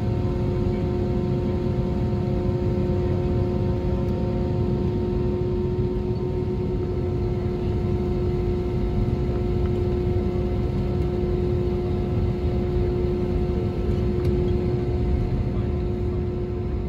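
Steady cabin noise inside an Airbus A320neo airliner on the ground: an even low rumble with a constant hum and a few fainter steady tones above it.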